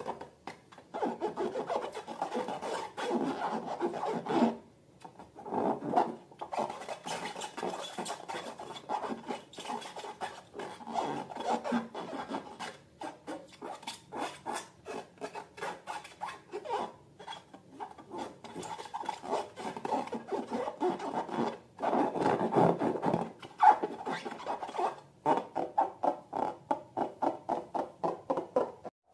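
Slime being squished and stretched by hand: rapid runs of short sticky clicks and pops, in uneven bursts with a few brief pauses.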